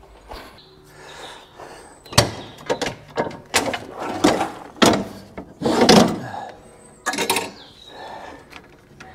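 A run of metal clanks and knocks, some ringing briefly, as parts on the front of a Husqvarna ride-on mower are handled and fitted by hand.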